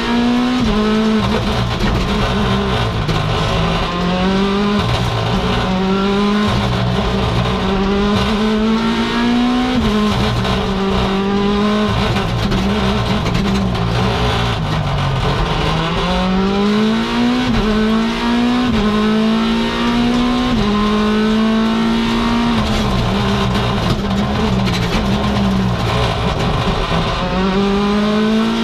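Mini John Cooper Works WRC's 1.6-litre turbocharged four-cylinder engine at full rally pace, heard from inside the cabin. It revs up and drops back again and again through gear changes and corners.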